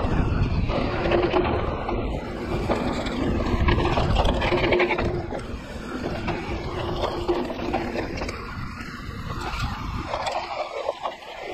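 Mountain bike riding fast down a dry, loose dirt trail: tyres scraping and crunching over dirt and gravel, the bike rattling, and wind rushing over the microphone. The low rumble eases about eight seconds in.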